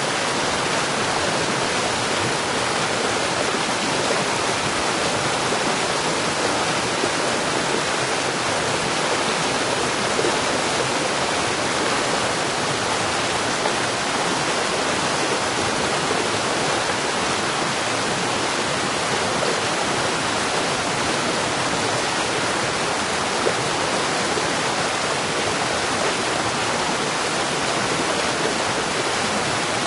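Stream rapids: water rushing steadily over rocks in a continuous, even rush.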